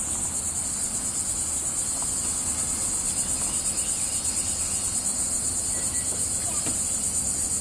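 Steady, high-pitched chorus of insects such as crickets, trilling in a rapid pulsing rhythm.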